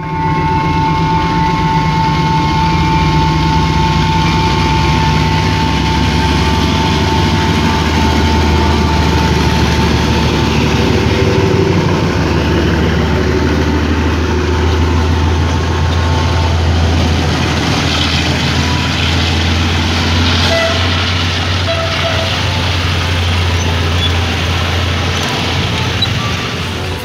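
Two diesel locomotives, Alstom Class M9 870 leading Class M5b 768, passing close by under power: a loud, steady engine drone, with a high steady whine through the first several seconds.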